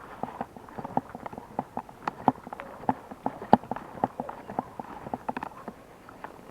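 A quick, irregular run of light knocks and clicks, several a second.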